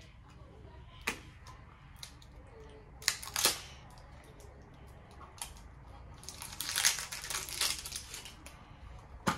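Toy packaging being handled and opened: scattered sharp clicks and taps, with crinkling of wrapper for about a second and a half a little past the middle.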